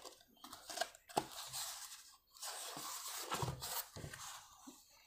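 A small sticker-covered styrofoam model plane being handled and turned in the hands, the foam faintly rustling and rubbing, with a few light clicks.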